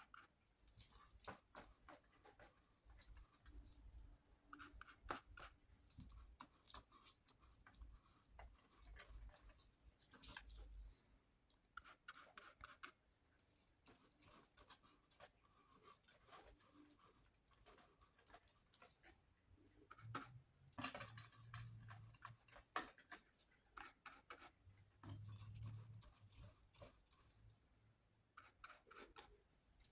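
Paintbrush working fluid acrylic paint on paper: faint, irregular soft scratching strokes and light taps.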